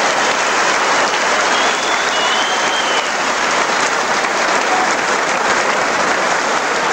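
Arena crowd applauding and cheering steadily after a boxing decision, with a faint whistle near the start.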